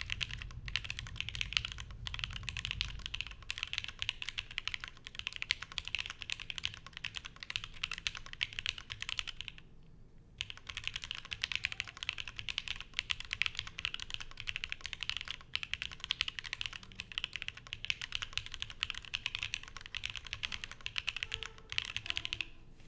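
Continuous typing on a Fox Lab Sandglass Ergo mechanical keyboard with lubed and filmed Alpaca linear switches, an aluminium plate and GMK Maestro keycaps. It is a dense, fast patter of keystrokes that breaks off briefly about ten seconds in and stops just before the end.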